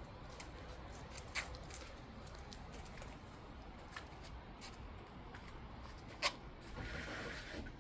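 Light handling noise: scattered small clicks and rustling, with two sharper clicks, one about a second and a half in and one a little after six seconds, and a short rustle near the end.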